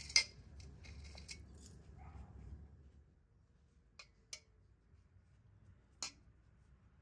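Small clinks and taps of metal spoons and dishes as dolma is stuffed and packed into a metal pot. There is a sharp clink just after the start, then a cluster of light clicks with a faint rustle of grape leaves over the next two seconds. Two clicks come at about four seconds in and one more near six seconds.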